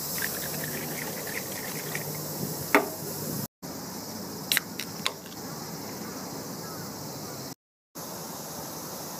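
Steady background hiss with a few short clicks, the sound dropping out completely twice for a moment.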